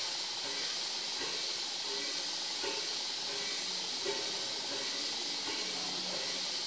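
Small stationary steam engine running, with a steady hiss of steam.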